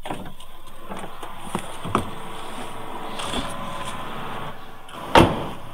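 A hatchback's driver door being opened with a few small latch clicks, then shut with one loud slam about five seconds in.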